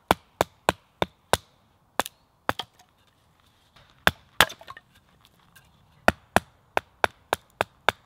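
Hatchet splitting small sticks of firewood into kindling: sharp, rhythmic wooden knocks, about three a second, in two runs with a short pause between them.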